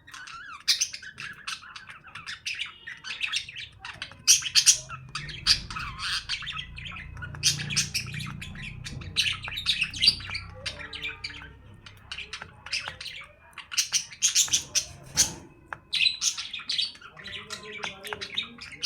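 Pet parrots chirping and squawking, many short high-pitched calls overlapping throughout.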